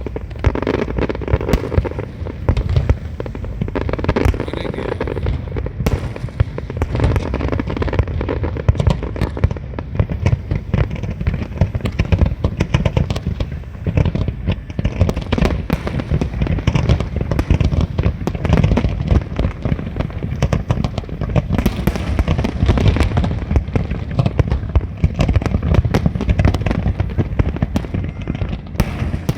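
Fireworks display: a continuous, dense barrage of booming shell bursts and crackling, many bangs a second throughout.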